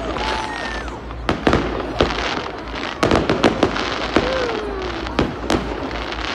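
Aerial fireworks shells bursting in a string of sharp bangs over a continuous crackling hiss, with a rapid cluster of bangs about three seconds in.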